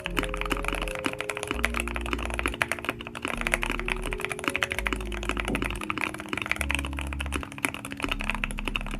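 Rapid typing on a mechanical keyboard fitted with Akko Rosewood linear switches: a dense, fast run of keystrokes. The switches are made to give a low-pitched, thocky sound.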